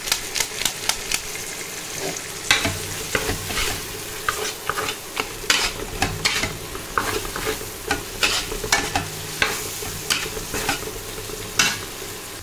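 A flat steel spatula stirs spiced vegetables in a kadai, with quick scrapes and taps against the pan about once or twice a second. A steady frying sizzle runs underneath.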